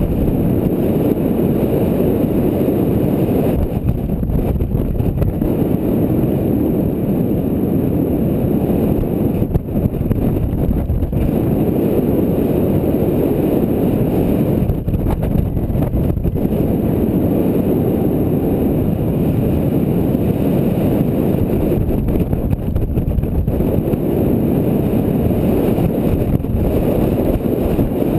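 Wind rushing and buffeting over a GoPro's microphone in paragliding flight: a steady low rush with a few brief dips.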